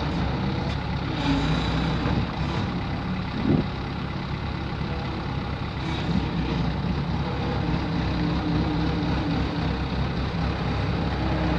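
Bobcat S185 skid steer's diesel engine running steadily, with a brief louder rising sound about three and a half seconds in.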